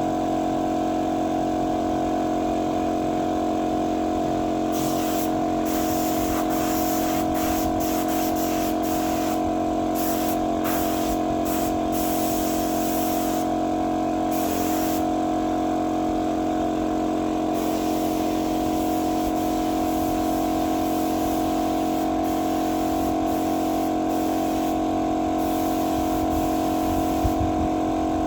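Paint spray gun hissing in short on-off bursts over a steady hum from its running air compressor. The bursts are most frequent between about five and fifteen seconds in.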